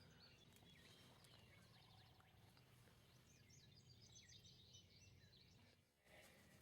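Near silence, with faint songbirds chirping in the background; the sound drops out completely for a moment about six seconds in.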